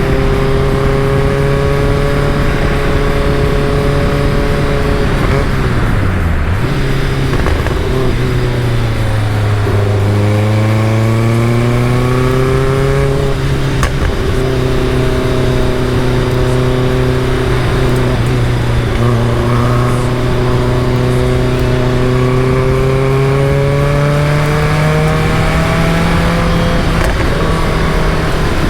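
Caterham Super Seven engine running under way. Its note holds steady, falls away about six seconds in, then rises as the car accelerates. It holds fairly steady again before rising once more near the end.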